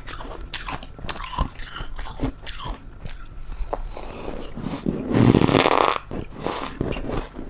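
Close-miked crunching and chewing of a mouthful of powdery freezer frost, full of fine crackly crunches. About five seconds in comes a louder, rougher burst lasting about a second.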